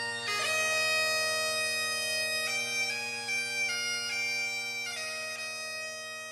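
Bagpipes playing a tune of held, stepping melody notes over steady drones.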